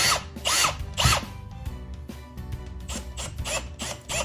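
Drill driving a mounting screw into an electrical box in short trigger pulses, the motor whirring up and falling back in pitch with each pulse: three strong pulses in the first second or so, then lighter, quicker ones near the end.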